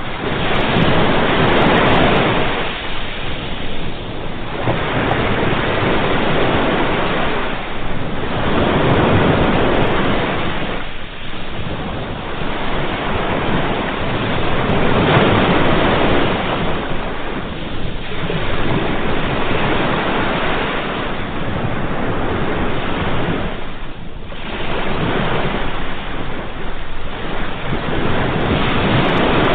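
Ocean waves washing onto a shore: a continuous surf that swells and eases every few seconds as each wave breaks and draws back.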